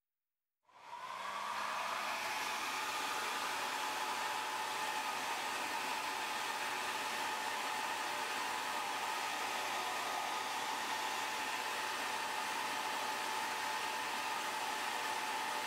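Hair dryer switching on about half a second in and coming up to speed within a second, then running with a steady rushing whir while it heats a phone's glass to soften the screen adhesive.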